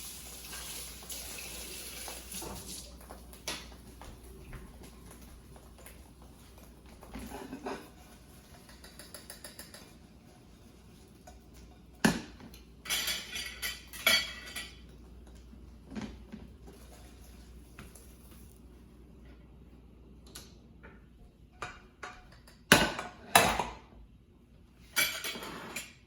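Kitchen tap running for a few seconds as a knife is rinsed, then scattered clinks and clatter of cutlery, a pan and dishes, with a few sharp knocks about halfway and near the end.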